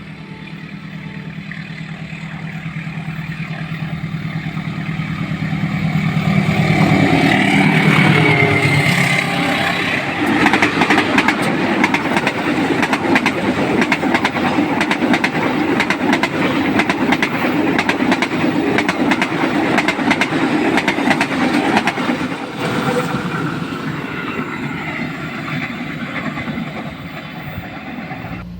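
A diesel-hauled passenger train passing close by: the locomotive's engine drones louder as it approaches, dropping in pitch as it goes past about eight seconds in, followed by a long run of coaches with rapid wheel clatter over the rails that fades away near the end.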